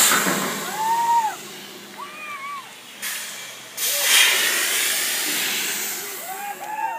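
Riders on a giant swing ride screaming, several short shrieks that rise and fall in pitch, over loud rushing hiss; the longest stretch of hiss begins about four seconds in and lasts around two seconds.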